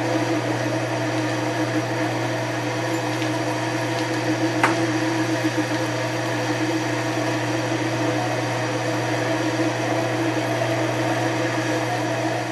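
Sherline miniature lathe running steadily while its tool cuts along a steel bar held between centres: a constant motor hum with a higher steady whine over it. A single sharp tick about four and a half seconds in.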